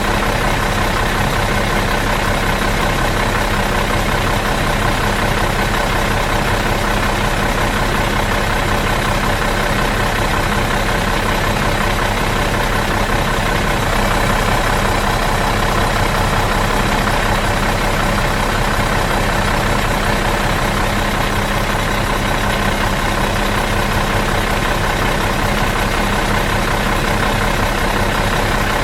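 Bus engine idling steadily out of gear, a continuous even rumble with a low hum and no revving or change.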